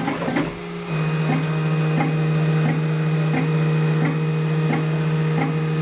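Solido SD300 Pro sheet-lamination (PVC film) 3D printer running: a steady motor hum sets in about a second in, with a regular click roughly every two-thirds of a second.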